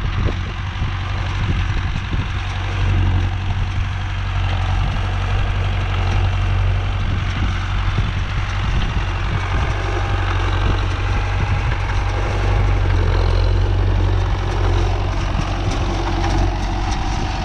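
Tractor engine running steadily while baling hay, a deep, even hum with the baler's machinery underneath.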